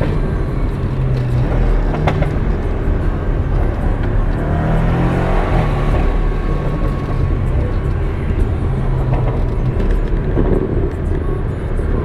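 Porsche 718 sports car driving, heard from inside the cabin: steady engine and road noise, with the engine note rising and falling as it drives on.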